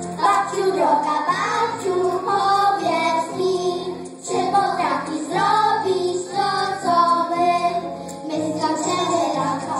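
A group of young children singing a song together through microphones, phrase after phrase, with brief breaks between lines.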